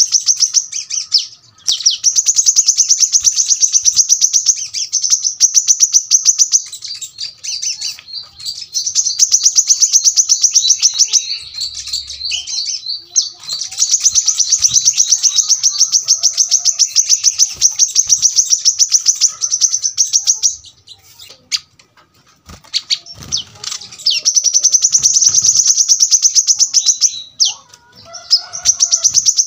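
Kolibri kelapa (brown-throated sunbird) singing in long runs of very fast, high, sharp notes ('tembakan rapat'). Five or six runs of a few seconds each are broken by short pauses, and the longest run, about seven seconds, comes in the middle.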